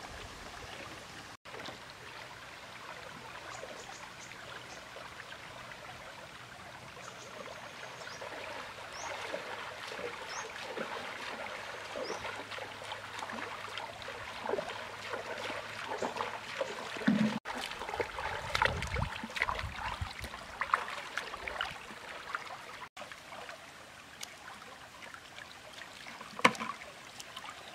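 Shallow river water trickling over stones and pebbles, with scattered small splashes and clicks.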